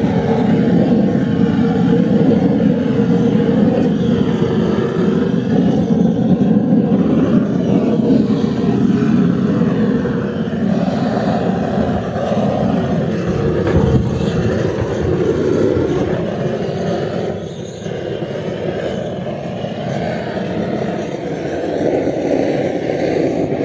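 Propane blowtorch, fed from a small gas cylinder, running with a steady flame as it scorches the inside of a wooden beehive box. The sound dips briefly about three quarters of the way through.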